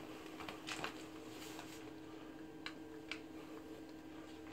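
A few light clicks and taps from hands handling tools and drain parts on a PVC shower pan liner: one cluster about a second in and two close together near three seconds. A steady faint hum runs underneath.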